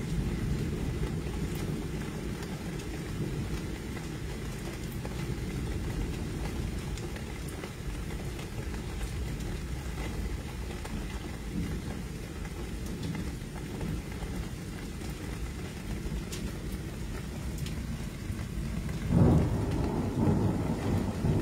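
Thunderstorm at night: a steady low rumble with rain, and a louder surge of rumble near the end.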